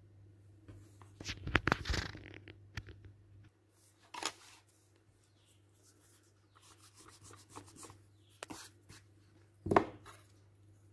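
Paper rustling and scraping with knocks from handling the phone, in uneven clusters, loudest a little over a second in and again just before the end.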